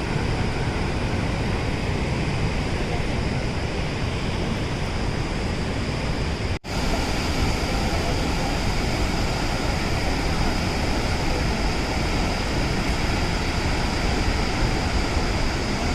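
Steady rushing roar of the Athirappilly waterfall and its river, broken only by a split-second gap about six and a half seconds in.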